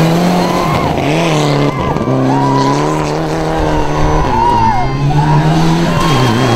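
Rally car engine running at high revs as the car slides through a dirt corner, the note holding steady and dipping briefly about two seconds in, again a little after four seconds, and near the end.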